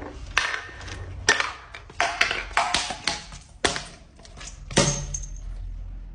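Crunchy objects being crushed for ASMR: a run of sharp, irregular crunches and cracks, about nine in all, the last one near five seconds in leaving a brief high ring.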